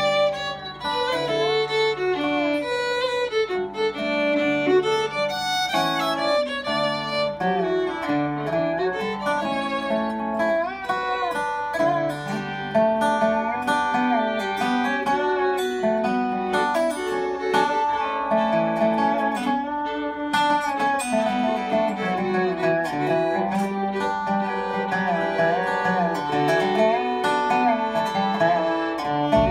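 Fiddle and dobro (square-neck resonator guitar played lap-style with a slide bar) playing a bluegrass tune together, the fiddle bowing the melody over the dobro's picked and slid notes.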